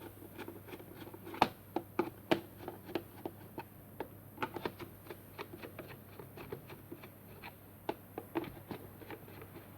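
Irregular small clicks and taps as a wall clock's plastic case is fitted back together and screwed shut with a small screwdriver.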